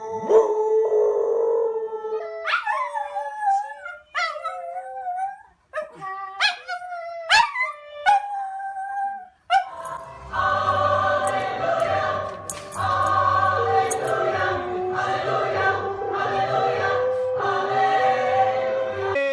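Dogs howling. First comes a series of separate howls and yips that rise and fall, with short pauses between them. About ten seconds in, a yellow Labrador takes over with a long, unbroken howl over music.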